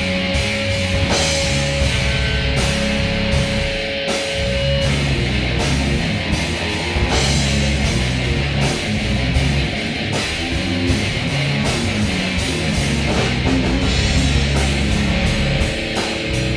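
Rock band jamming: electric guitar over bass and a drum kit keeping a steady beat, with a long held guitar note in the first few seconds.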